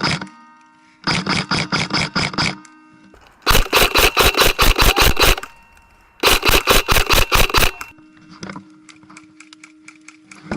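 Airsoft guns firing on full auto: three bursts of rapid, evenly spaced cracks, each a second and a half to two seconds long and cut off suddenly, followed by scattered single shots.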